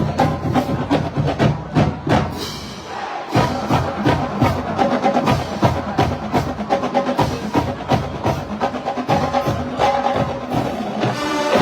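Marching band playing, with the drumline prominent: rapid snare and rim clicks over sustained band tones.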